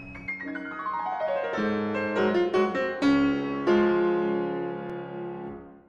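Short piano jingle: a quick run of notes falling in pitch, then a few held chords that fade out near the end.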